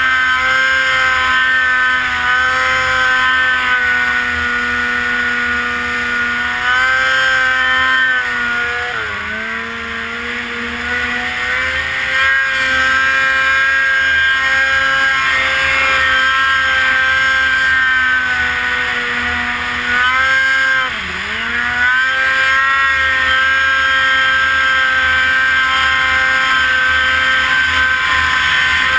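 Polaris RMK snowmobile's two-stroke engine running hard at steady high revs. Its pitch dips briefly twice, about a third of the way in and again about two-thirds through, as the throttle eases off, then climbs back up.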